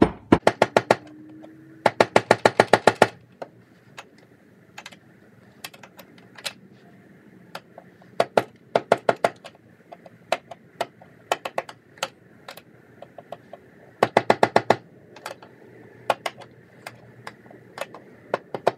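Small mallet striking a chisel in quick runs of rapid taps, about eight a second, with scattered single taps between. The chisel is driving a protruding screw head down flush.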